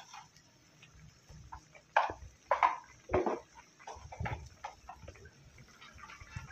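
A wok of thick pineapple sambal cooking, giving a few irregular soft pops and scrapes, the loudest about two to three seconds in.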